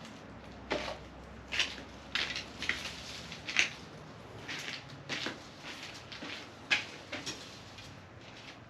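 Irregular scraping and scratching of digging into the soil of a container of sweet potatoes, about a dozen short scrapes with two sharper ones near the middle and about two-thirds through.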